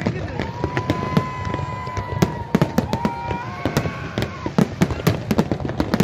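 Fireworks display: a rapid, continuous run of shell bursts and bangs. Over the middle of it a high, steady whistle sounds twice for a couple of seconds each.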